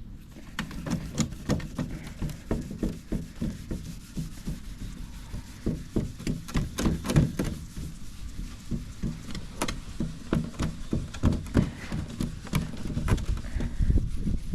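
Hand scrubbing on the wooden dresser's stripper-coated surface: a quick, uneven run of short rubbing scrapes, two or three a second, as the softened old stain is worked off.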